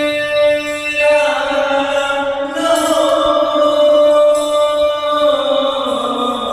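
A young man singing an Urdu naat solo and unaccompanied. He holds one steady note for about the first second, then moves through slow, drawn-out melodic turns.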